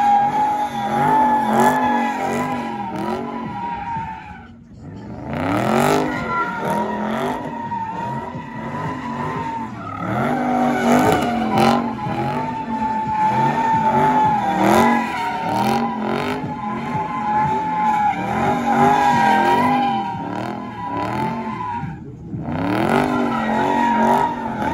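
Dodge Charger SRT's V8 revving up and down over and over while its spinning rear tyres squeal in a steady high note, drifting in donuts. The noise drops away briefly about four and a half seconds in and again near the end, then picks back up.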